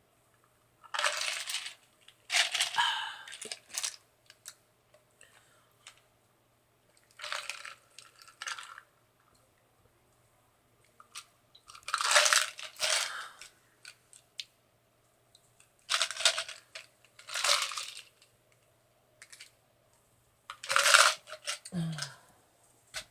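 A person sipping from a glass or can of Coke: a series of short slurping sips, about a second each and often in pairs, with silent pauses between them, and a brief low falling sound near the end.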